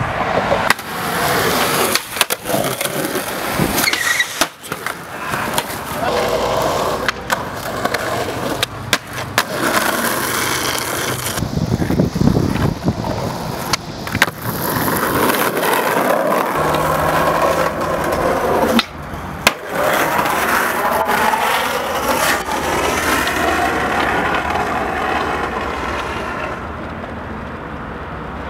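Skateboards rolling on concrete, with repeated sharp pops and slaps of tails, decks and wheels hitting the ground as tricks are tried and landed.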